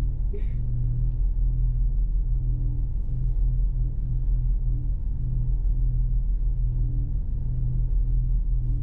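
Steady low rumble of a car driving, with no break or sudden change.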